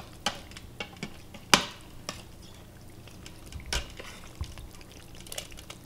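Large metal serving spoon stirring chunks of cooked beef in their juices in a stainless steel Instant Pot inner pot, with scattered clinks and knocks of the spoon against the pot, the sharpest about a second and a half in.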